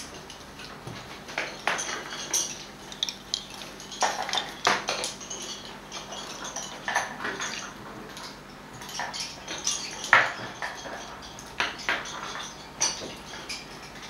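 Wooden lace bobbins clicking and clacking against each other as they are crossed and twisted over lace pillows, in irregular clusters of light clicks.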